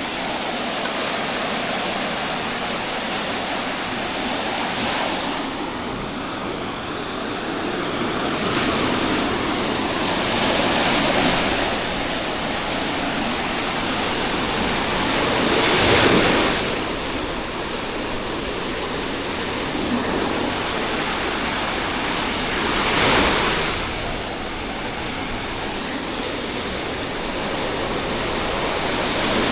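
Sea surf washing onto a beach: a steady rush of waves, with a wave breaking and swelling louder every five to seven seconds, the biggest about halfway through.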